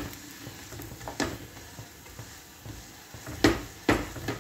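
Lachha paratha frying in oil on a flat tawa, a low steady sizzle, while a silicone spatula knocks and scrapes against the pan a few times, the two loudest knocks close together near the end.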